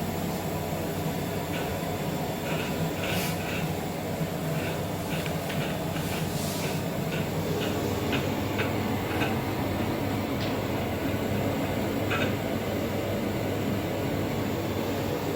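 Steady hum and hiss of running lab equipment or ventilation, with a run of light, irregular clicks in the middle.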